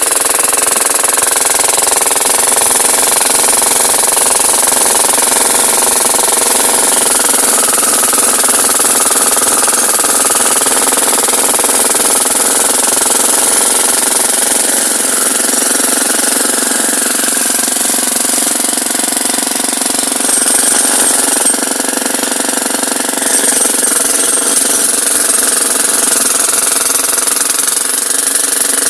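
Hydraulic hammer pounding continuously in a rapid, steady rhythm, with an engine running under it.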